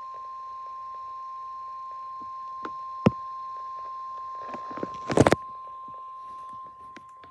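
NOAA Weather Radio warning alert tone, the steady 1050 Hz single-pitched tone from a weather radio's speaker, signalling that a warning message is about to be broadcast. A sharp click about three seconds in and a louder cluster of knocks around five seconds in.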